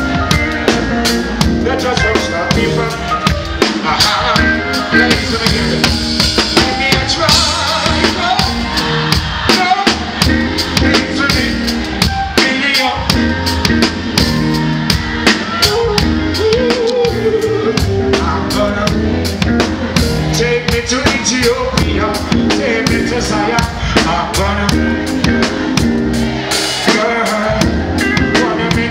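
Live reggae band playing loudly, with a full drum kit of kick drum, snare and rimshots driving a steady beat over electric guitar and bass.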